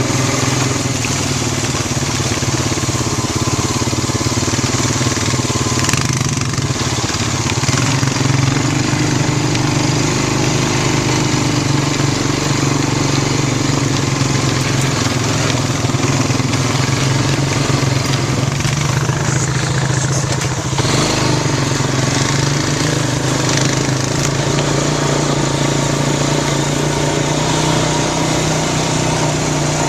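A 2005 Honda Rancher 350 ATV's single-cylinder four-stroke engine running on its freshly rebuilt carburettor while the quad is ridden. The engine note is mostly steady, with its speed shifting a few times, notably about a third of the way in and again past the middle.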